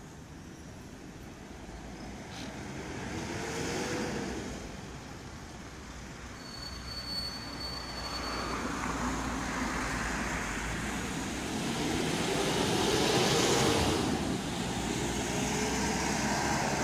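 Road traffic passing on a street: vehicles swell up and fade away, with one pass about four seconds in and a louder one around thirteen seconds in. A Mercedes Sprinter ambulance drives by near the end. A brief thin high tone sounds for about two seconds midway.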